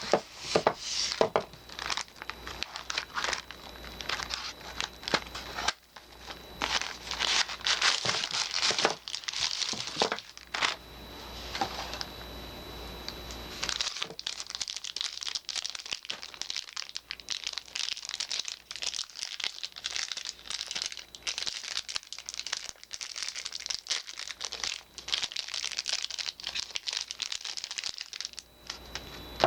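Soap bar wrappings being unpacked by hand: continuous irregular crinkling and crackling of the wrapping, with some tearing.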